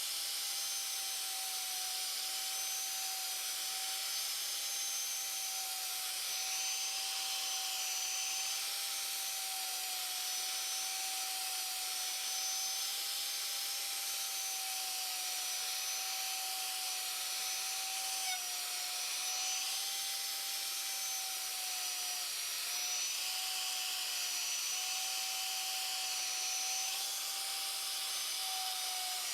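Surface grinder running, its wheel grinding a radius into the steel forging tool: a steady grinding hiss over a constant high whine, wavering slightly as the wheel is worked up and down.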